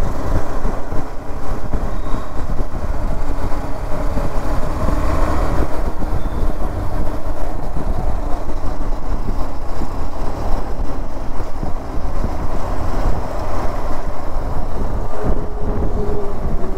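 KTM 390 Adventure's single-cylinder engine running at road speed, under loud, steady wind buffeting on the microphone.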